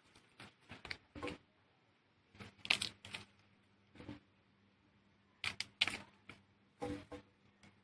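Irregular soft clicks and crackles in small clusters, with quiet gaps between: soil, dry leaves and cassava roots being handled as the roots are pulled up from the ground.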